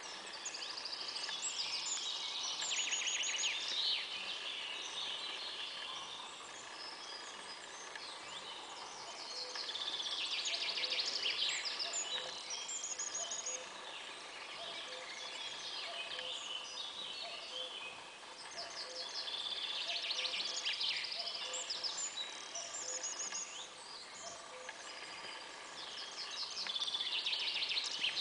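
Woodland birdsong: a songbird repeats a quick trilled phrase of two to three seconds about every eight seconds, with scattered chirps from other birds over a steady background hiss.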